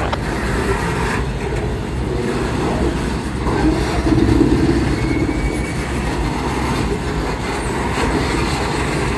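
Freight train of loaded centerbeam lumber flatcars rolling past: a steady rumble of steel wheels on rail, a little louder about four seconds in.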